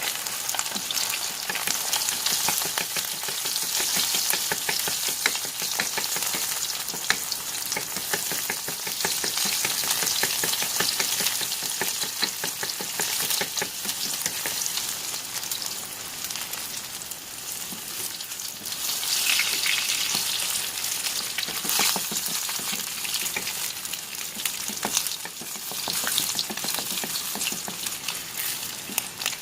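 Tilapia frying in hot oil in a frying pan: a dense sizzle full of small pops and crackles, swelling louder now and then.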